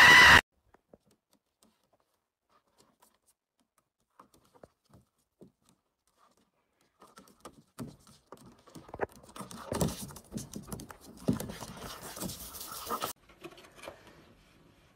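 Near silence for the first several seconds. About seven seconds in, a run of irregular scuffling, scraping and knocks from animals scrambling on a plastic playground slide, loudest a few seconds later, then fading to faint clicks.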